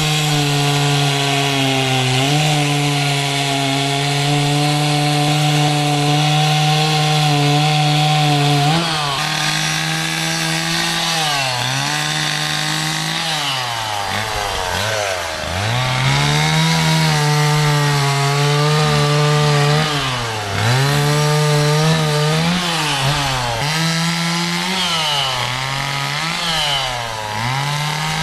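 Chainsaw carving into a wooden tree stump. For about the first nine seconds it runs at a steady high pitch, then the engine pitch sags and climbs back again and again as the saw works the wood.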